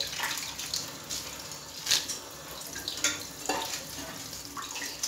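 A few light clicks and taps as dried red chillies are dropped one by one into a steel pot of dry lentils, over a steady hiss that sounds like running water.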